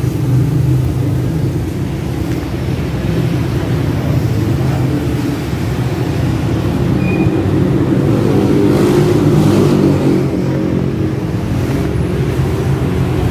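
A motor vehicle's engine running steadily close by, a deep even hum that swells and rises a little about eight to ten seconds in.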